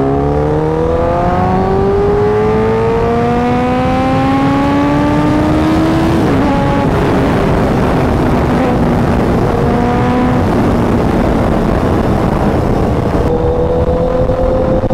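Honda CBR1000RR inline-four engine accelerating hard in gear, its note rising steadily, then dropping at an upshift about six seconds in. After that, heavy wind rush on the helmet-mounted mic at high speed mostly covers the engine, which holds a steadier note near the end.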